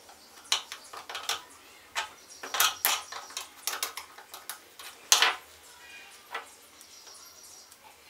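Thin metal blade scraping and clicking against a plastic faucet cartridge in an irregular run of sharp clicks and short scrapes, the loudest about five seconds in.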